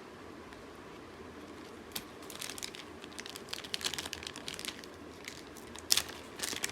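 Plastic packaging crinkling and crackling as small accessories are handled, starting about two seconds in, with a single sharp click near the end.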